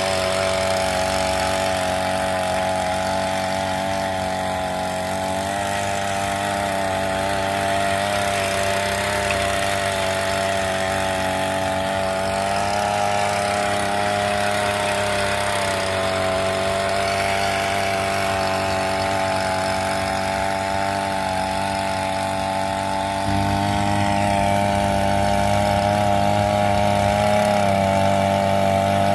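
Brush cutter's small petrol engine running steadily at high speed, driving a rotary tiller attachment through soil. It gets slightly louder a few seconds before the end.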